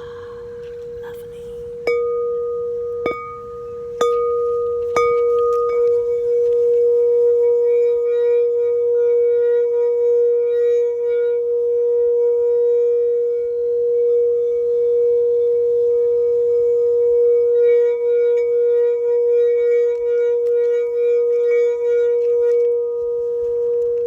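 Hand-held crystal quartz singing bowl tuned to A, struck four times about a second apart, then ringing on in one loud, steady tone that wavers gently, its overtones fading near the end.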